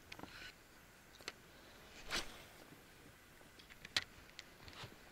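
Faint scattered clicks, with a short rustle about two seconds in and a sharper click near four seconds.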